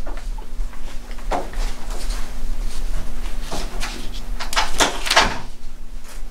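Loose sheets of paper in a manila folder being leafed through and shuffled, several short rustles with the loudest near the end, over a steady low electrical hum.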